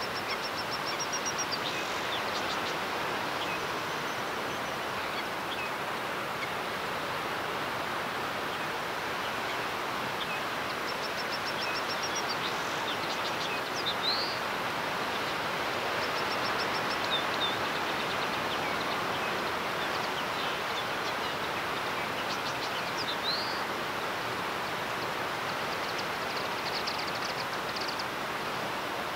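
A steady rushing background noise, with brief high, rapid trills from birds every few seconds and a couple of quick rising chirps.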